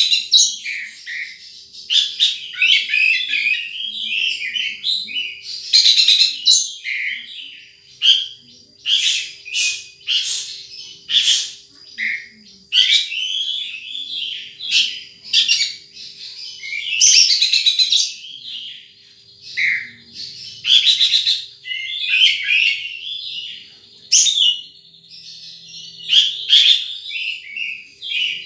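Sunbird calling: bursts of rapid, high chirps and twitters, repeated every second or two with short pauses between.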